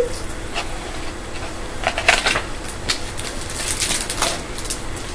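Pages of a hardcover picture book being handled and turned: short paper rustles and light taps, clustered about two seconds in and again about four seconds in.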